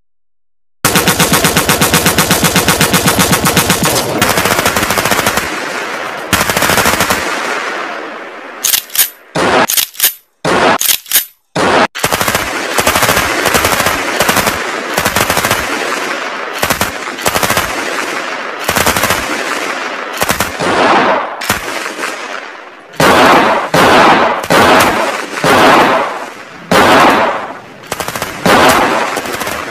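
Machine-gun fire sound effects: long rapid bursts of automatic fire beginning about a second in, broken by short gaps and a few single shots midway, with heavy bursts again near the end.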